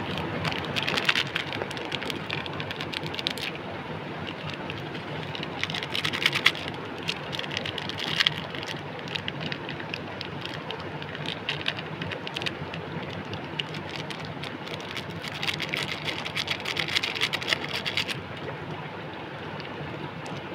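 Foil seasoning sachets crinkling as they are handled, torn open and emptied, in three spells of dense crackling over a steady low background noise.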